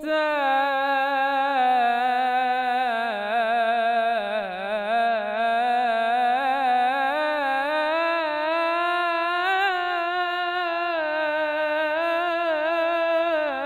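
A young man's solo voice singing an Islamic religious chant (ibtihal) unaccompanied. He draws out one long, ornamented phrase with a trembling pitch that sinks about four seconds in and climbs again later.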